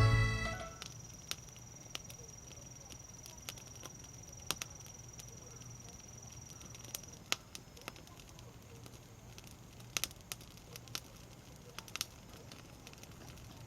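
A wood fire of conifer firewood burning quietly, crackling with irregular sharp pops, roughly one a second. The tail of background music dies away in the first moment.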